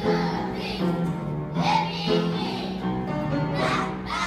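Young children singing a song in unison, with live piano accompaniment.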